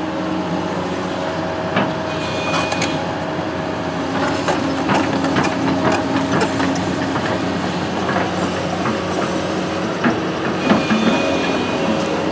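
Construction machine engine running steadily, with scattered clanks and knocks from the machine at work.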